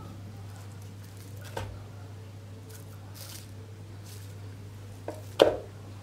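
Broccoli florets being set down one by one on a wooden cutting board: a light click, a soft rustle, and a louder thump about five seconds in, over a low steady hum.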